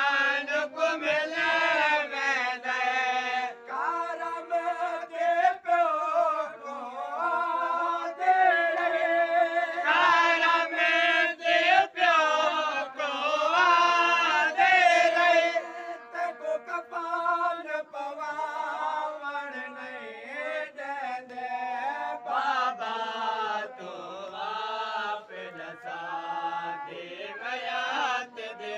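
Male voices chanting a noha, a Shia mourning lament, in long sung phrases with held notes, several voices overlapping.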